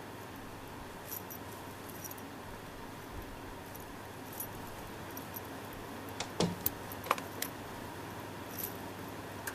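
Light jingling and clicking, most of it in a short cluster about six to seven and a half seconds in, over a steady low background hum.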